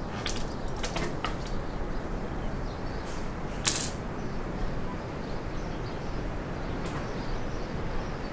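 Small handling clicks and taps as a folding line-cutting tool and a tied fishing hook are worked and set down on a wooden table. There are several light clicks in the first second or so, a sharper tap a little past the midpoint and a faint one near the end, over a steady low background noise.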